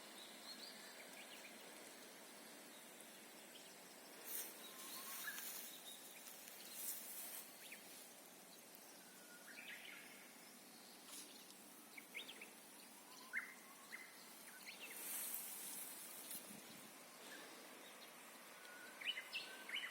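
Japanese bush warbler (uguisu) singing faintly, its whistled phrases repeated several times a few seconds apart, with bursts of high hiss between them.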